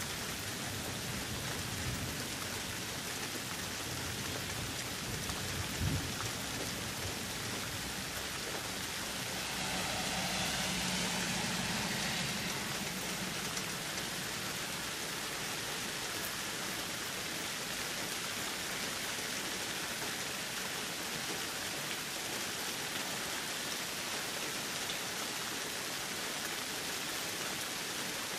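Steady rain falling, with a brief low thud about six seconds in and a louder swell for a few seconds in the middle that rises and fades.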